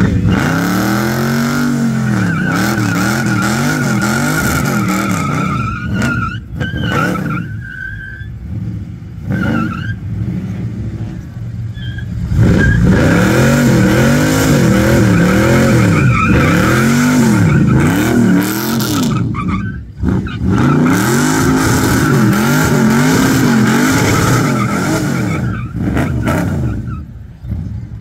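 Chevrolet Chevelle SS doing a burnout on a wet pad. The engine revs up and down again and again while the rear tyres squeal in a steady high note, in two long spells with a quieter lull between them.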